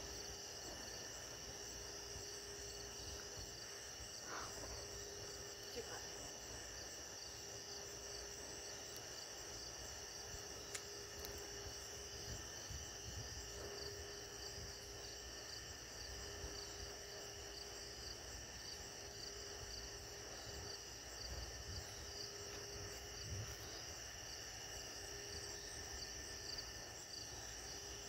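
Night-time insect chorus: a steady high trilling at several pitches, with a lower drone that comes and goes every second or two.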